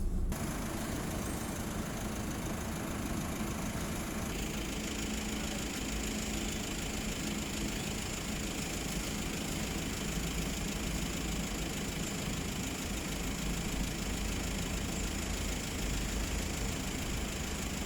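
Motor vehicle engine running steadily, with a low hum and a steady hiss that grows brighter about four seconds in.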